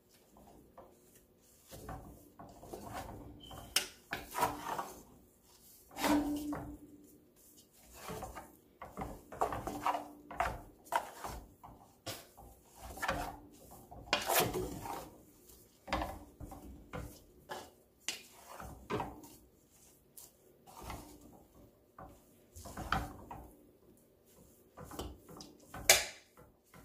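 Wooden spatula stirring rice vermicelli in a large stainless-steel pot: irregular scrapes and knocks of wood against the metal, with a sharp knock near the end.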